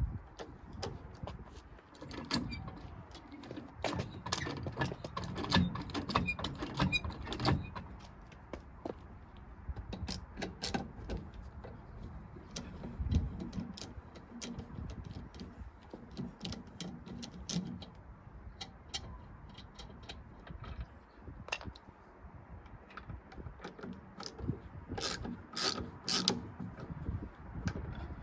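Hand ratchet and socket tools working on metal: irregular bursts of clicking and knocks, thickest a few seconds in and again near the end.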